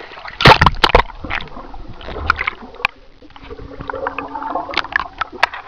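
Water heard from a camera at and below the surface as swimmers dive: splashing and bubbling, with a burst of loud, sharp splashes or knocks about half a second in and scattered clicks after. A steady low hum runs through the second half.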